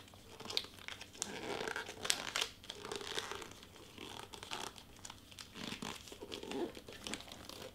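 Gift-wrapping paper crinkling and crackling as it is folded and creased by hand into tight end folds on a small package, in irregular bursts of sharp crackles.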